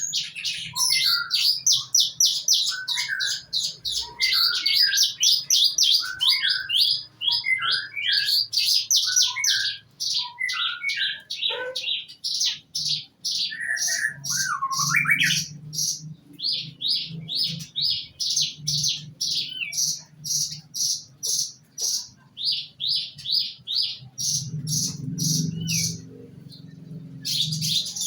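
Pastol songbird singing a long, rapid song of high repeated chattering notes, mixed with lower whistled phrases in the first half. It breaks off briefly twice and a low hum runs underneath.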